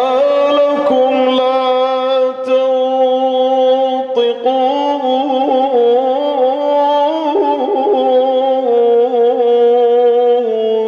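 A male Quran reciter's voice holding one long, drawn-out melodic phrase, the pitch wavering in small ornamented turns, in the Iraqi style of melodic recitation. It drops off shortly before the end.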